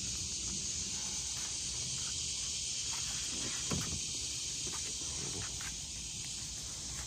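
Steady high-pitched chorus of evening insects, with light handling and footstep noise and a soft knock a little past halfway as the car's interior is handled.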